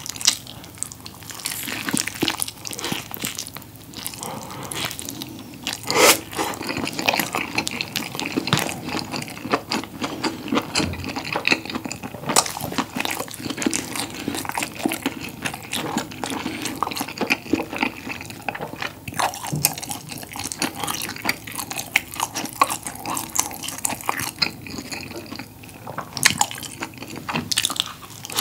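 Close-miked chewing and biting of a whole combination pizza rolled up, with a cream cheese crust: dense small mouth clicks throughout, with one louder click about six seconds in.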